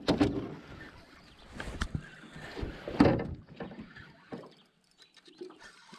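Scattered knocks and clatter of a landing net's aluminum handle and frame against an aluminum fishing boat, the loudest knock about three seconds in.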